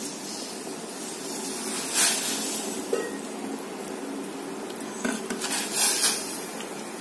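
Sago boiling in water in a steel pot, a steady bubbling hiss, as grated cucumber is tipped in, with a few clinks and knocks against the pot about 2 seconds in and again between 5 and 6 seconds in.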